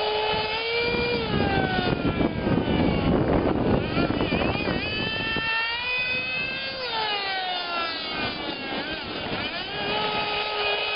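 Radio-controlled model snowmobile's small motor whining at high revs, its pitch rising and falling as the throttle is worked. A rushing noise joins it for a few seconds in the middle.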